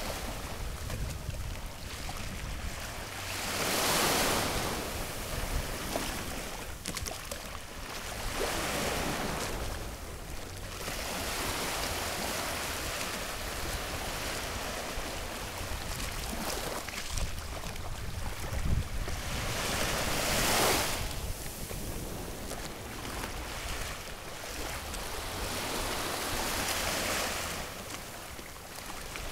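Small waves breaking and washing up a sandy beach in surges every several seconds, with a low wind rumble on the microphone.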